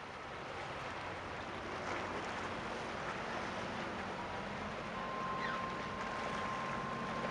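Steady low engine drone of ships passing close offshore, over a hiss of wind and water. A steady high tone comes in about five seconds in.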